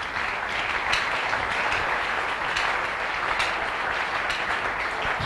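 A large congregation applauding, steady dense clapping that swells up just as it begins and then holds level.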